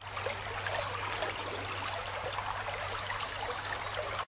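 Shallow stream running over a stony bed: a steady rush and babble of water. About halfway through, a high thin whistle falls in pitch over about a second. The sound cuts off suddenly at the end.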